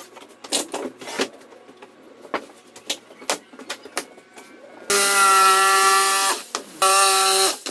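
MDF sheets and a clamp being handled, a few light knocks and clicks, then a jigsaw cutting MDF: the motor whines for about a second and a half, stops briefly, and runs again for under a second near the end.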